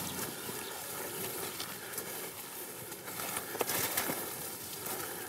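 Footsteps on dry leaf litter and twigs, with scattered sharp crackles, over a steady hiss.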